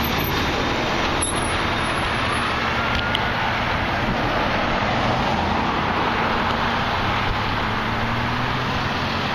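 Car driving along a road, with a steady mix of road and engine noise heard from inside the cabin.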